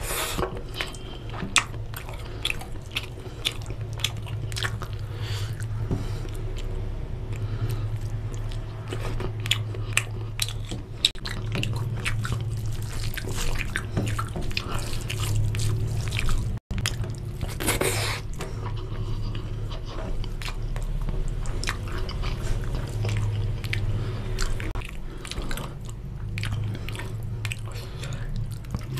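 Close-miked chewing and wet, sticky mouth sounds of a person eating rice and chicken curry by hand, many small clicks and smacks, over a steady low hum.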